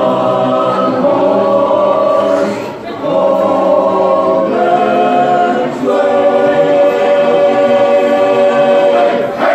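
Men's barbershop chorus singing a cappella in close harmony: three sustained phrases with short breaks between them, the last chord held for several seconds and released near the end.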